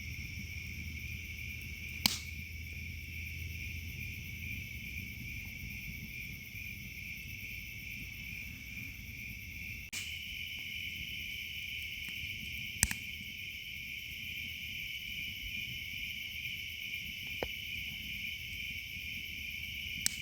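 Steady chorus of crickets or other singing insects, a continuous high trill, with a second, slightly higher-pitched chorus joining about halfway through. Two sharp clicks stand out above it, one a couple of seconds in and one near the thirteen-second mark.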